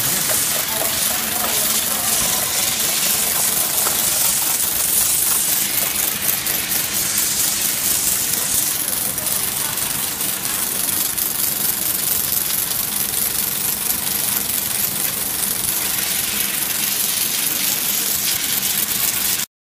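High-pressure water jet spraying against LED display strips: a loud, steady hiss with a faint low hum underneath, cutting off suddenly near the end.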